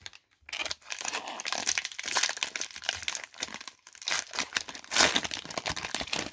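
Foil wrapper of a retail football-card pack crinkling and tearing as it is ripped open and handled, a dense crackle with the loudest crinkle near the end.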